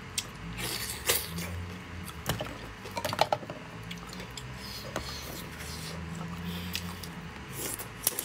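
Eating sounds: chewing cooked king crab meat, with soft wet mouth clicks and scattered small clicks from the crab shell being handled.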